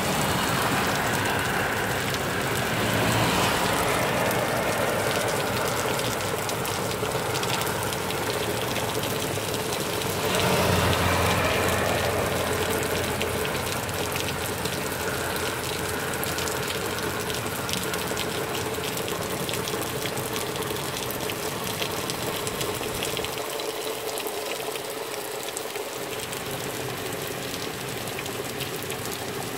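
Heavy rain pouring down, a steady rushing hiss that swells louder about three seconds in and again about eleven seconds in.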